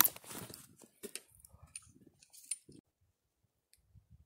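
Snow crunching under skis as the skier shifts on them, loudest right at the start, followed by a few faint scrapes.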